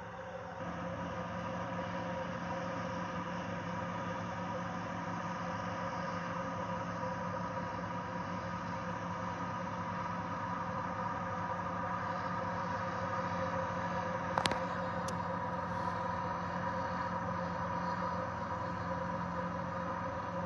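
John Deere 8R tractor's diesel engine running steadily, rising a little in level in the first second. Two sharp clicks half a second apart come about two-thirds of the way through.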